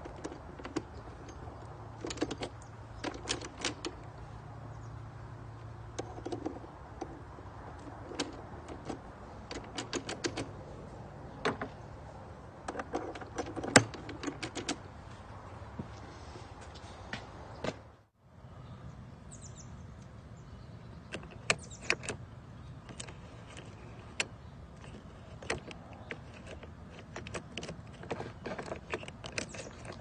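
Scattered sharp metal clicks and scrapes of a tool and fingers working the parts of a Kwikset key-in-knob lock, over a low steady hum. The sound cuts out briefly about two-thirds of the way through, then the clicking goes on.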